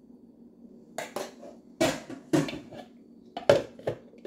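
Irregular knocks and clatter of things being handled and set down, about seven in all, the loudest about three and a half seconds in.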